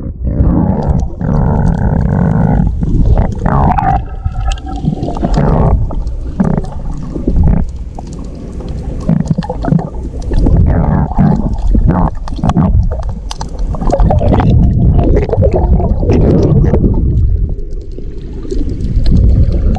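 Muffled sloshing and bubbling of water heard through a GoPro's waterproof housing while swimming, loud and uneven with scattered knocks.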